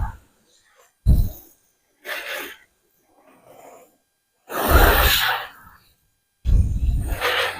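Wind buffeting the microphone in five separate gusts, each a rumble with hiss, dropping out to near nothing in between.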